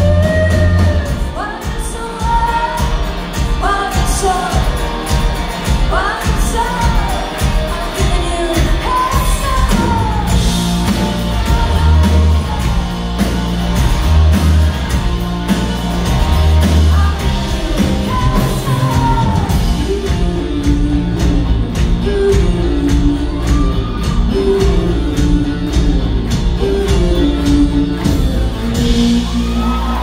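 Live rock band playing: a woman singing over acoustic and electric guitars, bass and drums, recorded from among the audience in a hall. The singing fades about two-thirds of the way through, leaving the band on a repeating melodic figure.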